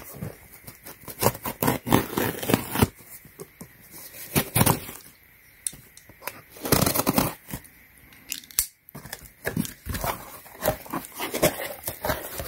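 Utility knife slitting the packing tape on a cardboard box, then the cardboard flaps pulled open and the contents handled, in an irregular run of scraping, tearing and rustling.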